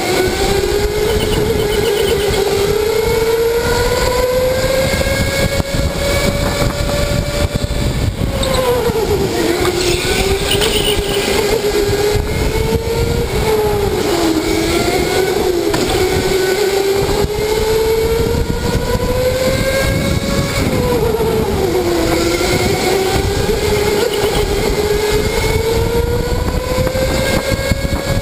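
Electric go-kart motor whining as the kart is driven hard, heard from the driver's seat: the whine climbs steadily as the kart accelerates and drops sharply three times as it slows for corners, over a steady rush of tyre and motor noise.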